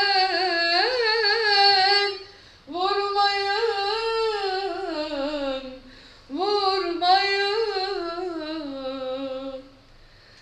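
A woman singing unaccompanied in a small room: three long, ornamented wordless phrases with wavering pitch, each sliding down at its end, with short breaths between them.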